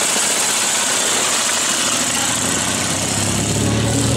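Sidecar motorcycle engine running steadily as the outfit moves off and rides away.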